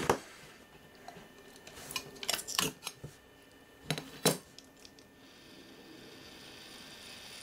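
Sharp metallic clinks and knocks as the loose metal cover plate of the compass computer's gear compartment is lifted off and handled: one at the start, a quick cluster about two to three seconds in, and two more about four seconds in.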